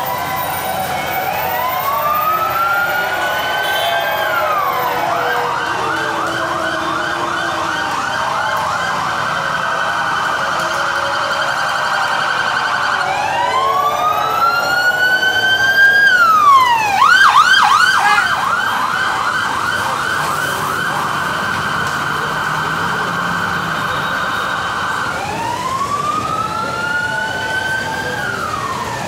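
Police vehicle siren alternating between a slow rising-and-falling wail and a fast yelp, three times over. It is loudest about halfway through.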